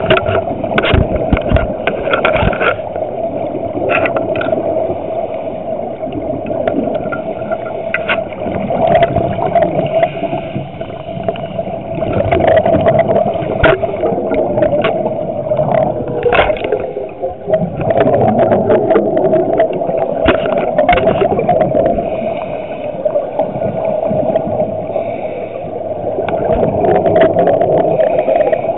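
Scuba diver's breathing through a regulator, recorded underwater: exhaled bubbles rumble and gurgle in swells a few seconds apart over a steady hum, with scattered clicks and knocks from the camera housing being handled.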